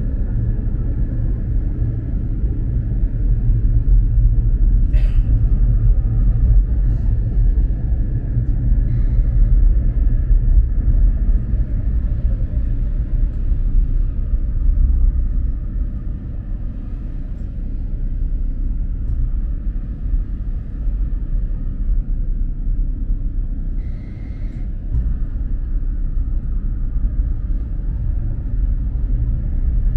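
Steady low rumble of a moving Prague tram heard from inside the car, with a faint steady high whine over it. A sharp click about five seconds in, and a brief higher tone later on.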